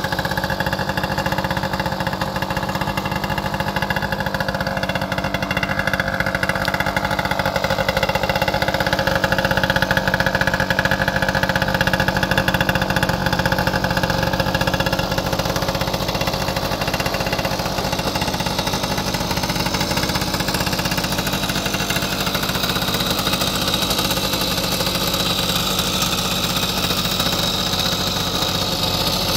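The 1972 Balkan Mk 50-3 moped's 50cc two-stroke single-cylinder engine idling steadily, a little louder for several seconds about a third of the way in.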